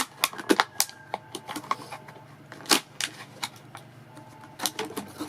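Plastic bottle trap handled in the hands: irregular sharp plastic clicks and knocks as the inverted bottle top is pressed into the cut bottle.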